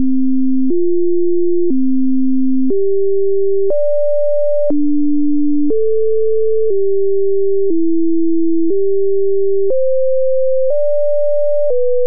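Computer-generated pure sine tones play the digits of pi mapped onto a C major scale, where 1 is C, 2 is D and so on. The notes run 1-4-1-5-9-2-6-5-3-5-8-9-7 (C, F, C, G, high D, D, A, G, E, G, high C, high D, B). Each note is a steady pitch held about one second, with a small click at each change of note.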